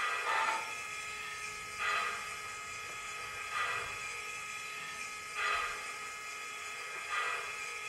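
Onboard sound system of an MTH HO-scale Union Pacific Big Boy model playing standing steam-locomotive sounds: the air pump panting in a slow, even rhythm, one stroke about every two seconds, over a steady hiss.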